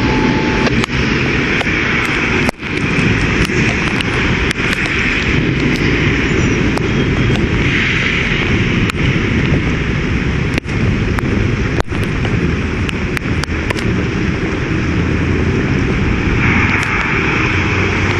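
Thunderstorm downpour: heavy rain and gusting wind making a loud, steady rushing noise, with wind buffeting the microphone.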